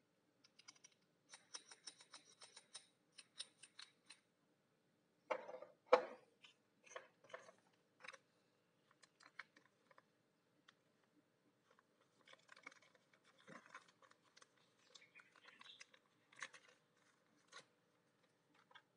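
Small metal parts of a motorcycle handlebar end weight being handled: quick metallic clicks and ticks, then two louder knocks about five to six seconds in. Later comes the crinkle of a plastic parts bag being handled.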